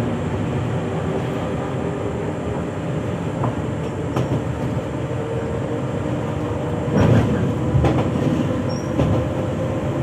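SNCF Z 20500-series (Z2N) double-deck electric multiple unit standing still, its onboard equipment running with a steady hum and a held whine. A few loud knocks come about seven to nine seconds in.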